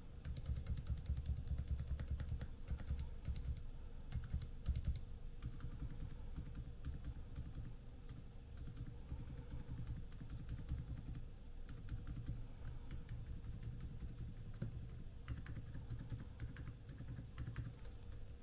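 Continuous fast typing on a Zouya GMK67 mechanical keyboard with Outemu Silent switches and silicone keycaps: a steady run of soft, dull keystroke thuds with only faint clicks.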